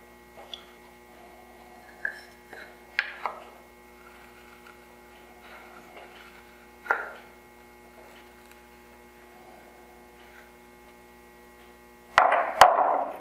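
Marking gauge and wooden board handled on the workbench: a few light taps and knocks, then near the end a short, louder scrape with two sharp clicks as the gauge scores the dovetail baseline. A steady electrical hum runs underneath.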